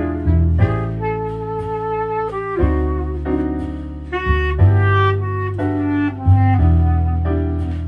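A clarinet and a saxophone playing a slow jazz standard together, held notes changing every second or so, over low sustained bass notes.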